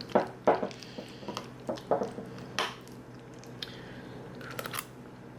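A utensil clinking and tapping against a bowl while egg salad is mixed, a few irregular clicks with soft squishing in between.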